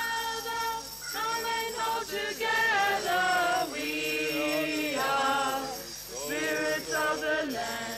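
A group of protesters singing a protest song together, unaccompanied, in long held notes with short breaks between phrases.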